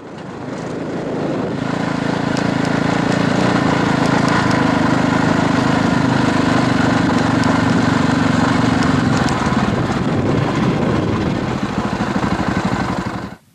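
Off-road motorcycle engine running steadily, fading in over the first couple of seconds and cutting off abruptly near the end.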